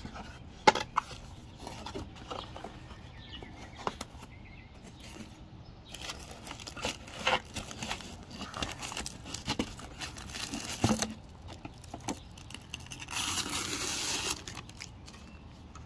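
Unboxing noise: cardboard flaps and foam packing handled with scattered taps and clicks, and a headlight's clear plastic bag crinkling as it is handled and pulled off, loudest in a dense stretch of crinkling near the end.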